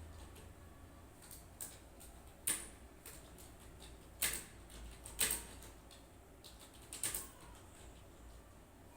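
Computer keyboard keys being pressed in a slow, irregular run of single clicks, about a dozen in all, with a few louder strokes standing out.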